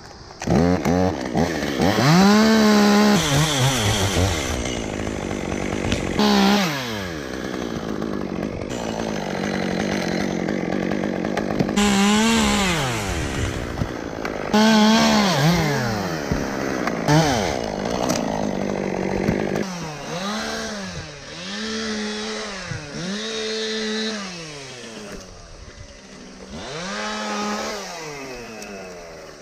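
Chainsaw running at full throttle in wood, its engine pitch sagging and recovering again and again. In the last third it is blipped up to full revs and let drop back about once a second.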